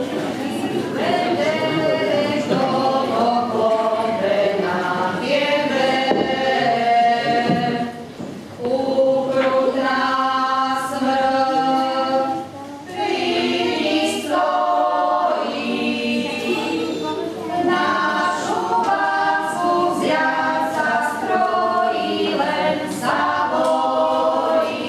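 A group of voices singing unaccompanied, holding long sung notes, with brief breaks between phrases.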